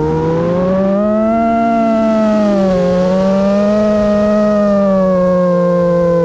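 Brushless motors and propellers of an iFlight Nazgul5 V2 5-inch FPV quadcopter whining in flight, several close pitches at once. The pitch rises about a second in, dips near three seconds, swells again and eases off toward the end as the throttle changes.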